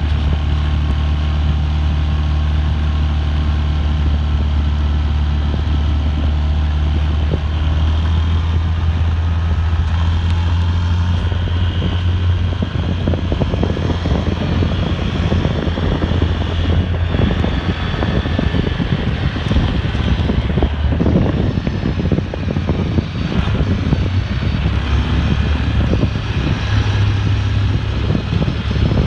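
An engine running steadily, with a loud low hum and a noisy haze over it.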